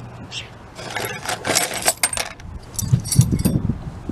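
Small metal carburetor parts clinking and rattling as they are handled, followed by some dull handling bumps about three seconds in.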